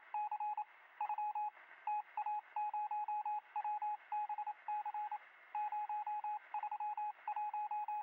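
Electronic beeping sound effect: short beeps of a single tone in quick runs with brief gaps, like a computer readout typing out text, with a thin, phone-line-like sound.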